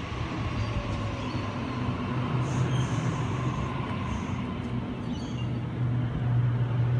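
Sydney Trains Waratah (A set) electric multiple unit pulling into the platform and running past close by. A steady low hum grows louder in the second half, and a faint higher whine falls slowly in pitch in the first few seconds as the train slows.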